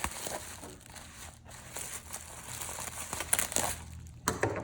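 Packing material crinkling and rustling as it is pulled open by hand, with a few sharper crackles near the end.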